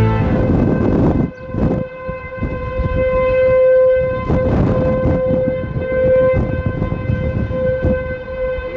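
Outdoor tornado warning siren sounding a single steady pitch that swells and fades in loudness as it sweeps around, with wind buffeting the microphone.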